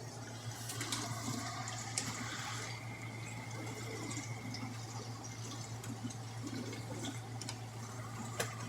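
Refrigerator running with a steady low hum, over which liquid trickles and gurgles unevenly, with scattered faint ticks and a sharper click near the end.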